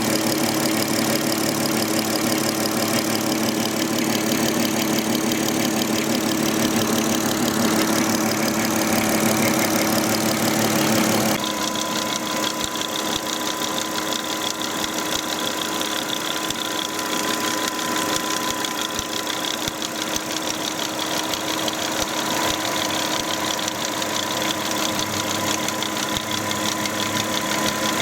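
Volkswagen Touareg engine idling steadily under a strange noise that the owner cannot trace. About 11 seconds in, the sound changes abruptly: it becomes a little quieter and a steady high tone appears.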